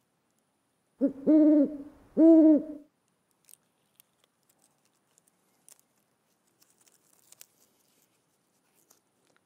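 Owl hooting twice, each hoot a little under a second long, about a second and two seconds in. Near silence with a few faint clicks follows.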